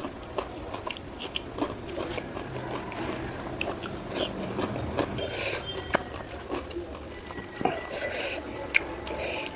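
Close-miked mouth sounds of a person eating: wet chewing with many small smacking clicks, and a few brief hissy bursts around the middle and near the end.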